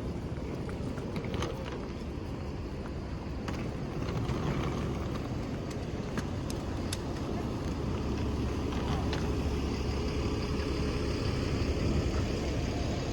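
Steady low rumble of a road vehicle, with a few faint clicks.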